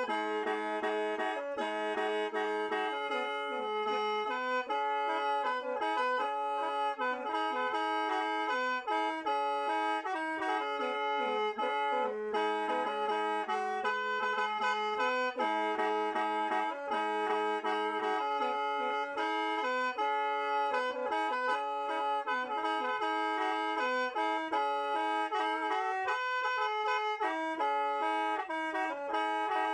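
Khaen, the Lao bamboo free-reed mouth organ, played solo: a melody over several held notes sounding together, with a low drone note underneath through much of the first half.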